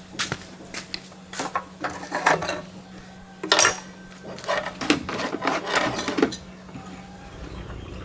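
Metal tools and parts clinking and clattering against each other in a run of irregular knocks and clinks, some of them ringing briefly. It goes quieter about six seconds in.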